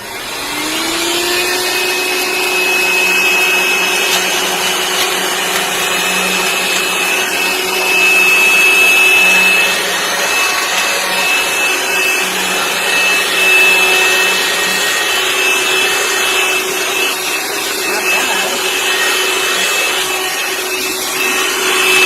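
Cordless handheld vacuum cleaner switched on, its motor whine rising over the first second, then running steadily with a high whine above it while vacuuming up potato chips.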